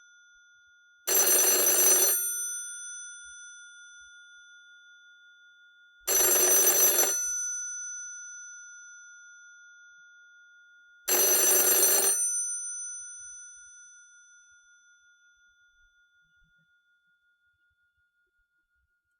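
Antique rotary-dial telephone's bell ringing: three one-second rings about five seconds apart, the bell tones dying away slowly after each ring and fading out after the last.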